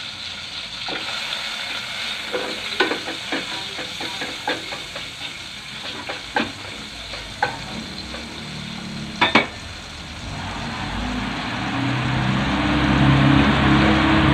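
Melted butter sizzling in a stainless steel frying pan while a wooden spatula stirs it, clicking and tapping against the pan several times. From about ten seconds in, a low, steady hum grows louder underneath.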